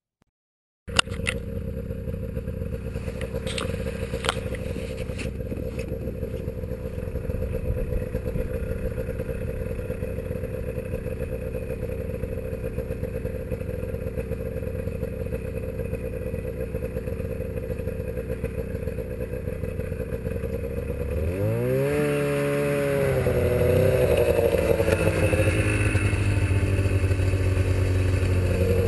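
Snowmobile engine idling steadily, with a few sharp clicks in the first few seconds. About 22 seconds in, it revs up with a rising pitch and runs on louder as the sled pulls away.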